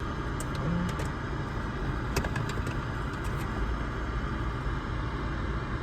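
Car engine idling as a steady low rumble, with a few light clicks in the first half.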